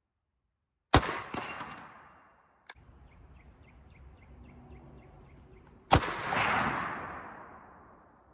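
PSL-54C semi-automatic rifle in 7.62x54R firing two single shots about five seconds apart, each with a sharp crack followed by an echo that dies away over a second or two.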